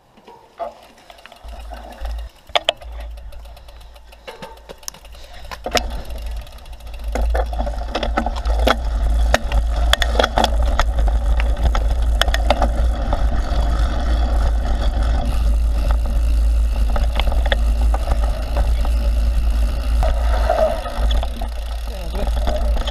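Mountain bike ridden down a dirt forest trail: a steady low wind rumble on the camera's microphone, with tyre noise and the bike rattling over bumps. The first seconds hold only scattered knocks and clicks; about seven seconds in the sound grows loud and stays steady as the bike picks up speed.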